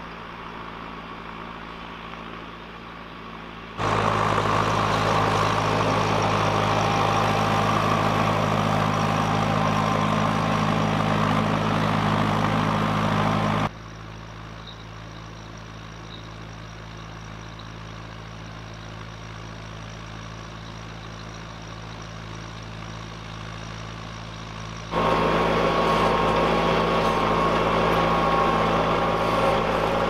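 Fendt Vario 415 tractor's six-cylinder diesel engine running steadily under load while pulling a reversible mounted plough through the soil. The drone jumps abruptly between louder, nearer stretches and a quieter, more distant one a few times.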